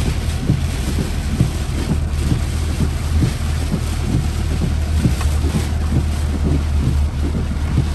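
Hurricane wind and heavy rain beating on a car, heard from inside the cabin, over a steady deep rumble, with many irregular low thuds.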